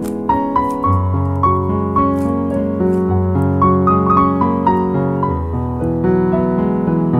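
Background music: a piano melody over a sustained bass line, notes changing about every half second.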